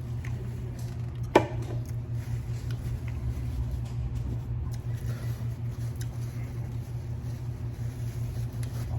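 Steady low background hum of the restaurant room, with one sharp knock about a second and a half in and a few faint clicks.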